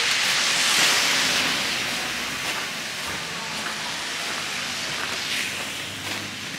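A loud hiss that swells to a peak about a second in and fades away over the next two seconds, with a second, fainter hiss about five seconds in.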